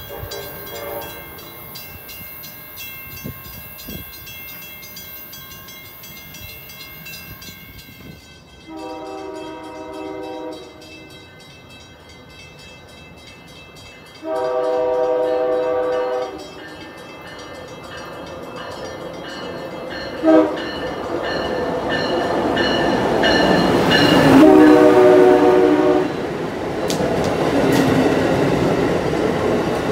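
Amtrak Acela high-speed train sounding its multi-note horn in a long, long, short, long pattern, the standard warning signal, as it approaches. From about 20 s in, the rumble and rush of the train passing close by grows loud and stays loud.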